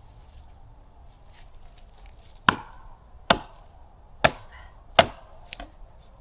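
Four hard chopping strikes on wood, about one every 0.8 s starting midway, each with a short ring, followed closely by a lighter fifth.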